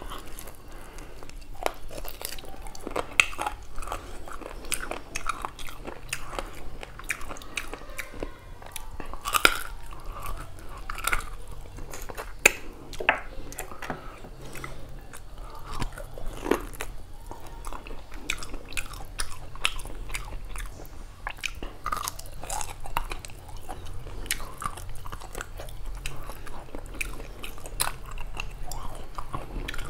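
A man chewing mouthfuls of beef curry and rice eaten by hand, with a steady stream of irregular wet mouth clicks and smacks.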